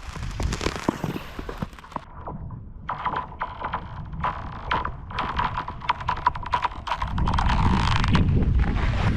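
Nordic skate blades running over thin new lake ice: a dense crackle of sharp clicks and ticks, with the ice ringing at a steady pitch underneath. About seven seconds in, a louder low rumble joins.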